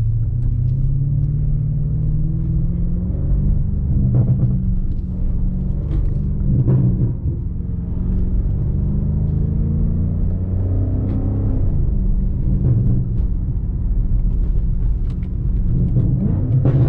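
BMW M5 Competition's twin-turbo V8 engine and exhaust under way, a steady low rumble whose pitch climbs and falls several times as the car accelerates and eases off.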